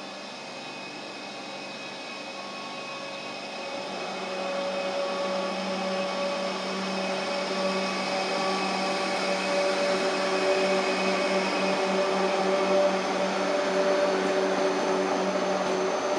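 DB Class 425 electric multiple unit rolling past close by, its traction equipment whining in several steady tones over the rumble of the wheels on the rails. It grows louder over the first half as the cars come alongside, then holds.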